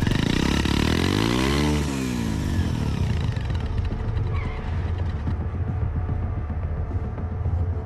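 Motorcycle engine revving up and back down over the first two seconds, then idling with a steady low rumble as the bike stands.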